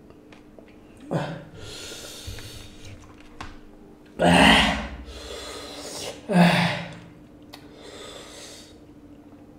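A man gasping and blowing out hard breaths through his mouth, four in all, the loudest about four seconds in: a reaction to the burn of an extremely hot chili chip.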